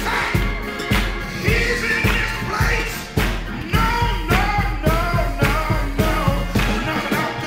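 Disco-gospel dance edit: a steady kick drum about two beats a second under voices singing.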